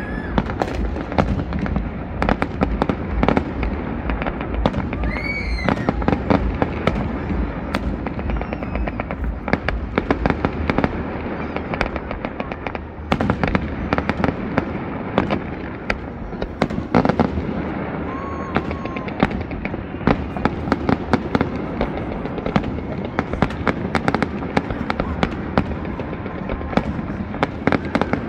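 Aerial fireworks going off in a dense, continuous barrage: many bangs and crackles a second, with no let-up.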